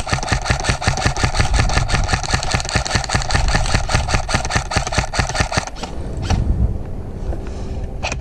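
Airsoft M16 electric gun (a custom build on a G&G M16A3) firing on full auto: a long string of rapid, evenly spaced shots with the gearbox motor whirring. It stops a little before the end, then starts a new string of fire just at the end.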